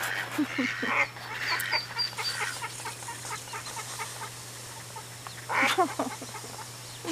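A hen duck and her ducklings calling: a run of short calls and thin high peeps in the first couple of seconds, then a louder call about five and a half seconds in. A steady low hum runs underneath.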